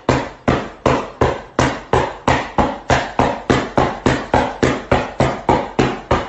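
Rapid rhythmic thumps or slaps, about three a second and evenly spaced, each a sharp hit with a short low thud that dies away before the next.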